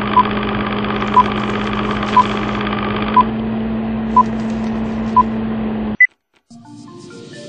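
Film-leader countdown sound effect: a steady mechanical projector whirr with a short beep once a second, six times, ending in one higher beep about six seconds in. The sound then cuts off and music with mallet-percussion notes fades in near the end.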